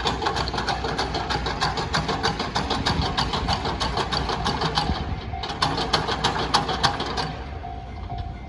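A train passing over a level crossing, its wheels clicking rapidly over the rail joints, with a short break about five seconds in. The clicking stops a little after seven seconds. The crossing's warning bell keeps ringing throughout.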